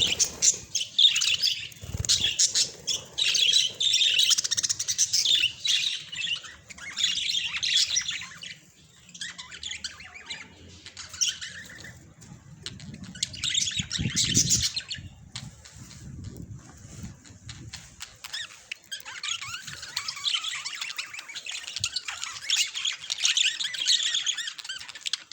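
Pet budgies (budgerigars) chirping and chattering in busy bursts, with quieter stretches midway and some low rustling in the middle.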